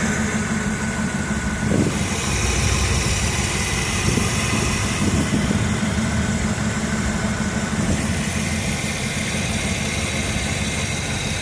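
Carbureted car engine idling steadily at low rpm, under full electrical load with the headlights on.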